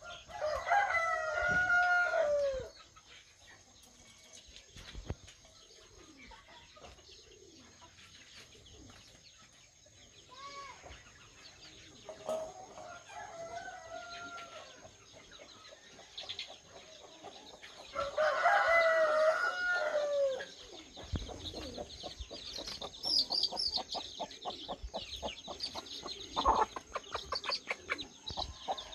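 A rooster crowing, loudly near the start and again about eighteen seconds in, with a fainter crow in between. Toward the end a hen clucks rapidly, with high chirps of chicks.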